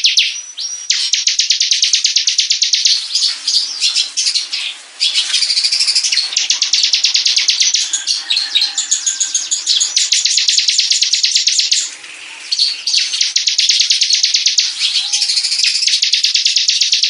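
A small songbird singing a long, fast trilling song of rapidly repeated high notes, with a few short pauses between phrases.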